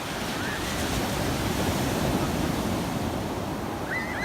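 Sea waves washing onto a beach, a steady surf noise that swells about a second in and eases off near the end.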